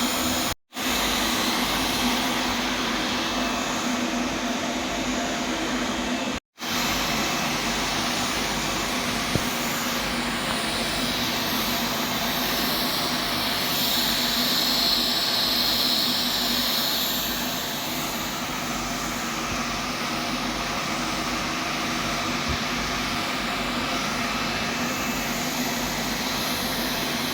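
Steady hiss with a low hum from stainless-steel welding work, cutting out to silence twice for a moment near the start.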